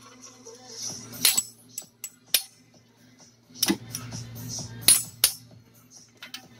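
A hand tool clinking against metal parts at the camshaft of a Ford 5.4L V8 cylinder head: about six sharp metallic clicks at irregular intervals.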